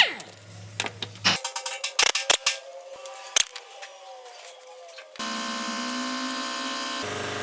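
A run of sharp clicks and light knocks, like hand tools on metal, then a steady machine hum with an even whine about five seconds in.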